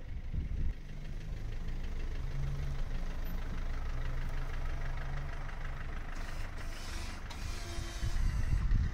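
Mercedes Vito taxi's diesel engine running at low revs as the van moves slowly past close by. It gets louder near the end as the van comes nearest.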